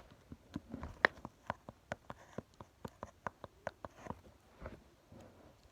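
A series of light, irregular clicks and taps, about three a second with one sharper click about a second in, from a fidget board's small moving parts being handled.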